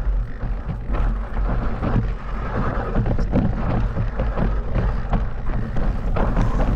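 Mountain bike being ridden over rough ground: wind rumbles on the microphone, with a steady run of knocks and rattles from the bike.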